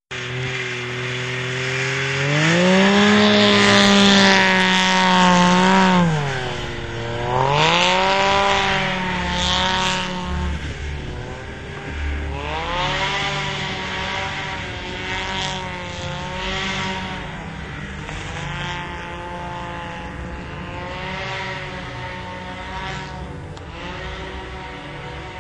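Snowmobile engine revving hard as the sled ploughs through deep powder. Its pitch climbs about two seconds in, holds, drops near six seconds and climbs again, then keeps rising and falling with the throttle while it slowly fades as the sled moves away.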